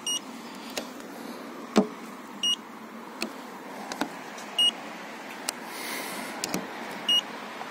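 Handheld Nicety coating thickness gauge beeping four times, a short high beep about every two seconds, each beep marking a paint reading as the probe is set against the car's body panels. Light taps and clicks come in between, the sharpest about two seconds in.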